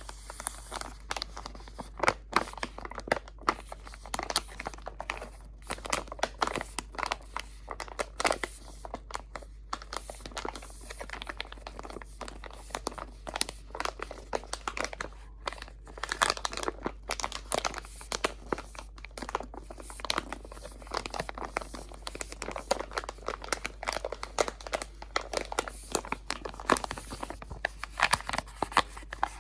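Close-miked crinkling and crumpling of crinkly material, a continuous irregular run of sharp crackles with short pauses.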